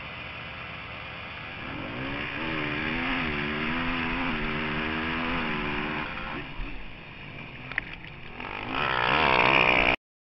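Yamaha YFZ450R quad's single-cylinder four-stroke engine racing flat out, picked up by an onboard camera, its revs climbing and falling again and again as the rider works the throttle and gears. It drops back for a moment, then gets much louder near the end before cutting off abruptly.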